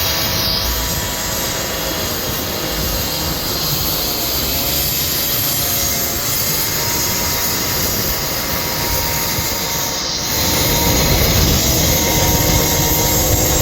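Steady rushing noise of road traffic, with a faint engine hum running through it. It gets louder about ten and a half seconds in.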